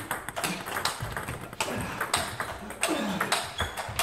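Table tennis balls ticking off bats and table tops in knock-up rallies at two tables, a quick, uneven run of sharp clicks that overlap one another.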